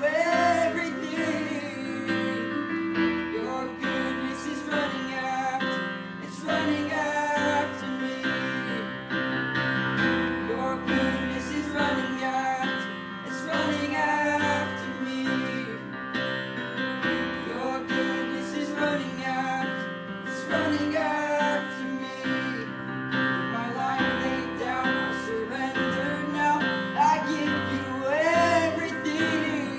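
Worship music: singing over guitar and keyboard accompaniment.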